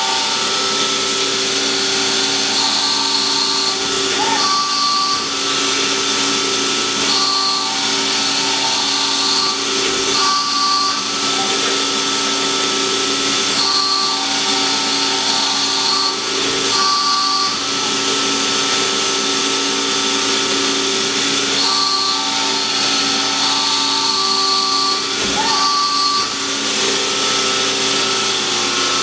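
Strippit LVD CNC hydraulic press brake running, its hydraulic pump giving a steady hum, with higher whines coming and going every few seconds as the machine's axes move.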